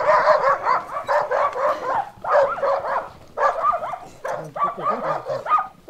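Barking: quick runs of short, high barks and yelps, about one run a second with brief pauses between.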